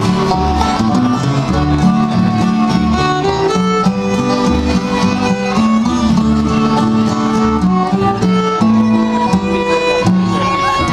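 Live bluegrass band playing an instrumental break, with the fiddle taking the lead in held, bowed notes over strummed acoustic guitar, banjo and the steady beat of an upright double bass.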